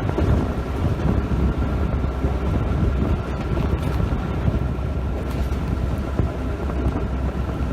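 Train running, heard from on board: a steady low rumble with wind buffeting the microphone.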